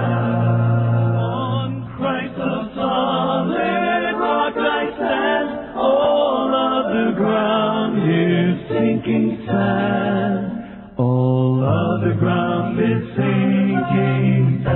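A vocal group singing a song in harmony, several voices at once.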